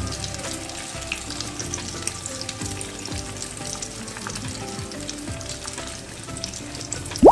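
Corn kebabs deep-frying in hot oil in a pan: a steady sizzle with fine crackling. Right at the end, a brief loud rising sweep cuts in, the loudest sound present.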